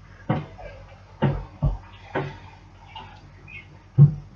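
Five soft thumps at irregular intervals, the loudest near the end.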